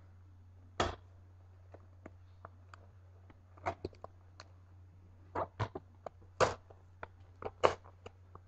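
Hands working at plastic retail packaging to get it open: scattered sharp clicks and crackles of plastic being handled and pried, with a steady low hum underneath.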